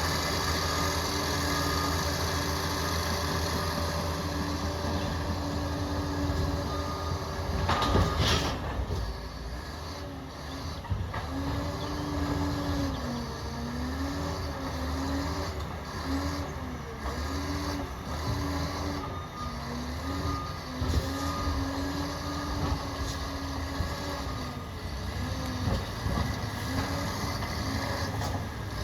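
Liebherr PR 746 crawler dozer working, its diesel engine running steadily. About eight seconds in there is a loud, brief noisy burst. After that, a whine rises and falls over and over above the engine.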